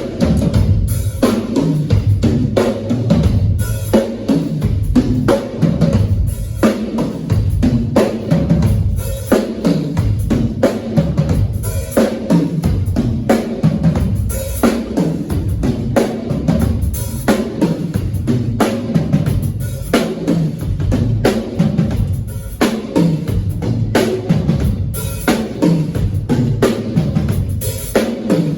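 Live drum kit played hard and fast, with dense kick drum and snare hits and rapid fills.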